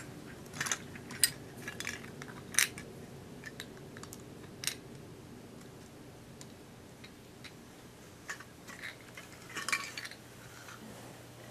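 Toy construction vehicles and pieces being handled and set down: scattered sharp clicks and clacks of small hard objects, with a short cluster of light rattling near the end.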